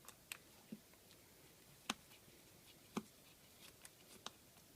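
Faint, scattered clicks and taps of a small screwdriver working at the screws in a Samsung Galaxy S4's frame, about eight light ticks over a few seconds, the sharpest near the middle.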